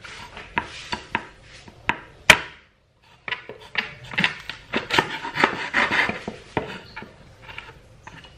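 Chinese cleaver chopping through a raw whole chicken's leg joints onto a wooden cutting board: a string of sharp knocks, the loudest a little over two seconds in, a brief pause, then a quicker, denser run of chops.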